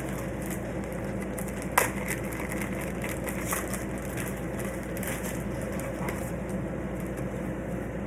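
Crinkling and rustling of plastic packaging as a phone case is unwrapped and handled, with one sharp click about two seconds in, over a steady low hum.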